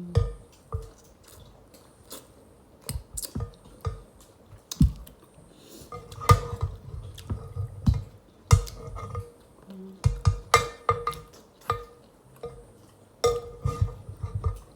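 Close-up eating sounds: a spoon clinking and tapping against a plate or bowl in a run of sharp taps, each ringing briefly, mixed with chewing.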